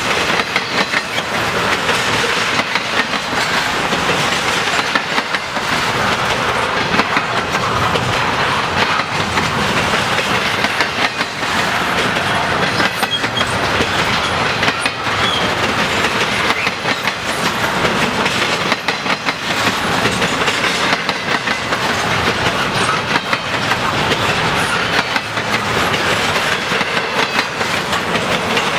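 Intermodal freight cars rolling past, steel wheels clattering and rumbling on the rails in a steady, unbroken run.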